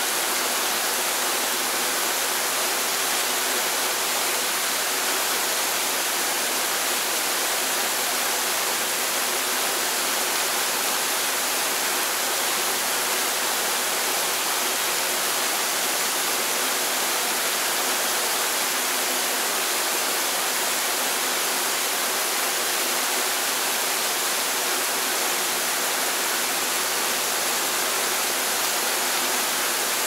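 Waterfall rushing steadily: an even hiss of falling water that does not change.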